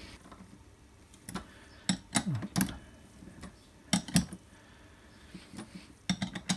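Steel spanner clinking against the hub nut of a cast handwheel while the nut is tightened against the shaft key: several sharp metallic clinks and taps, a pair about four seconds in and a quick cluster near the end.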